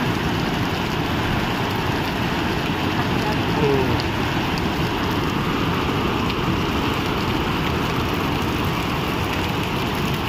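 Steady rushing roar of a muddy river in full flood, mixed with falling rain.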